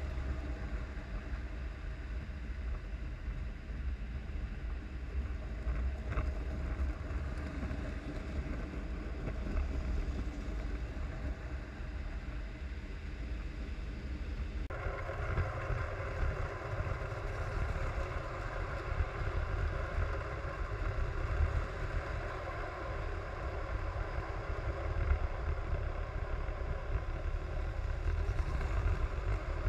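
Lionel three-rail toy trains running on the layout: a steady low rumble of wheels and motors on the track, which changes abruptly about halfway through to a brighter, noisier run.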